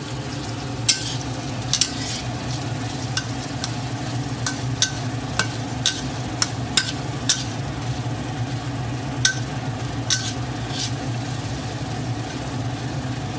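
Metal spatula stirring dried chillies and garlic frying gently in oil in a steel wok, with about a dozen irregular sharp clinks of the spatula against the pan. A steady low hum runs underneath.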